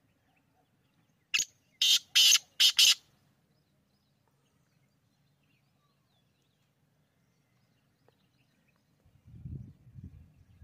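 Black francolin giving one harsh, grating call phrase of four notes about a second in: a short first note, then three longer ones in quick succession. A low rumbling noise starts near the end.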